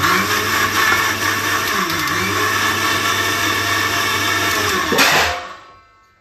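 Electric blender running, blending rasam, its motor pitch dipping briefly about two seconds in, then winding down once switched off after about five seconds.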